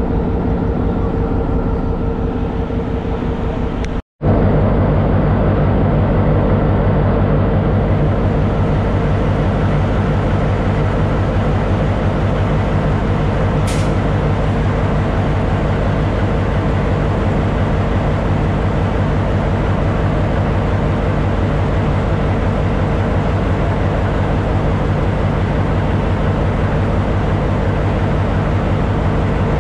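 Sri Lanka Railways Class M6 diesel locomotive engine idling steadily, with an even, rapid low throb. About four seconds in the sound cuts briefly and comes back louder and closer, right at the engine-compartment grilles. A brief high-pitched sound comes about halfway through.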